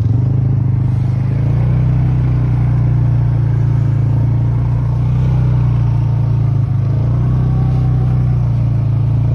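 Polaris ride vehicle's engine running steadily under way across snow, a constant low drone that dips briefly about two-thirds of the way through.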